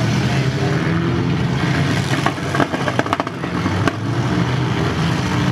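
Several compact demolition derby cars' engines running and revving together, with a quick cluster of sharp knocks and bangs about two to four seconds in as the cars hit one another.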